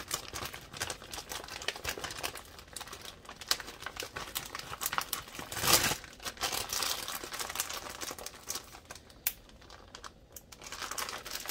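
Crinkling packaging: a paper bakery bag of wax melts in a clear plastic bag being handled. The crackle is loudest about halfway through, eases off for a couple of seconds near the end, then picks up again.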